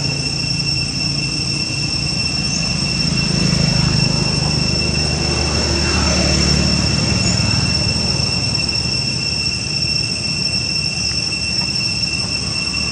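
A continuous high-pitched drone at two steady pitches over a low, steady rumble.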